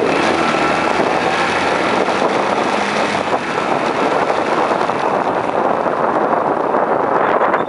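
Wind rushing steadily over the microphone of a Yamaha Enticer 125 motorcycle riding along a road, with the bike's engine running underneath. A brief high beeping comes near the end.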